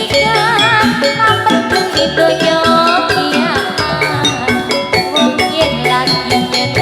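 Javanese gamelan music: metallophones ringing a steady interlocking pattern over regular drum strokes, with a wavering high melody line above them.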